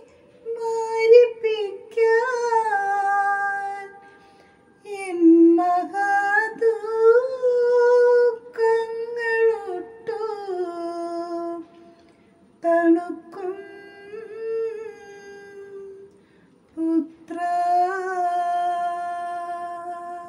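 A woman singing a Malayalam Christian devotional chant (paana) solo and unaccompanied, holding and gliding between notes in phrases with short pauses between them.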